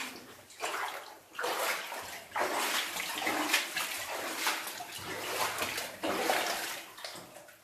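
Someone wading through water on a flooded mine tunnel floor: a swishing splash with each stride, about one a second.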